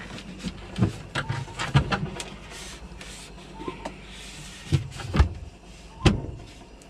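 Handling noise at a portable fridge: a series of sharp knocks and clicks with a few short rustles as a temperature probe is placed in the fridge compartment, over a steady low hum.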